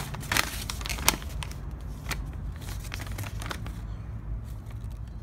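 Paper instruction booklets being handled and shuffled: several rustles and sharp clicks in the first second or so, then sparser faint ticks, over a steady low hum.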